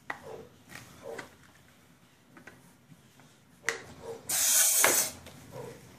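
Small plastic clicks as a black airsoft part is handled and twisted, then a short loud hiss of pressurised gas escaping about four seconds in.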